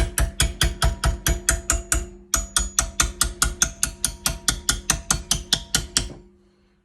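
Rapid, even hammer taps, about five a second, on a copper pipe coupling held in a vise, being shaped into a welding backing spoon, with a steady metallic ring under the strikes. The tapping breaks briefly about two seconds in and stops about a second before the end.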